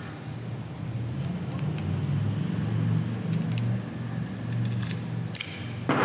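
Brown parcel tape being handled and cut with scissors: a low, uneven rasp through the middle, a few small snips, and a sharper noisy snip or rip near the end.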